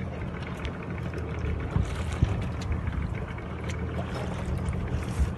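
Steady low rumble with water noise and a few light knocks, like a boat out on the water.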